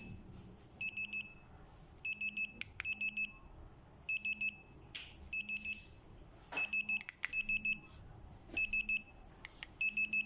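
Pager wristwatch of a wireless calling system beeping as it receives calls from the call button: bursts of about four short, high beeps, repeated roughly once a second, with a faint low buzz under each burst. Sharp clicks of button presses fall between some bursts.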